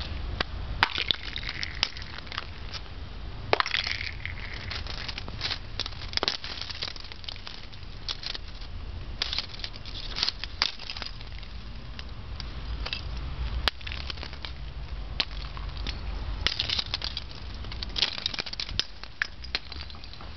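Ice-glazed shrub twigs being handled and broken: the clear ice casings crack and clink against each other in many irregular sharp clicks.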